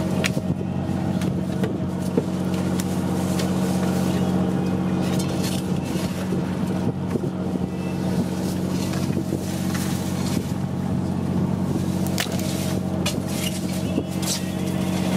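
Fishing boat's engine running with a steady, even hum. A few short, light knocks are heard over it as boxes of fish are handled.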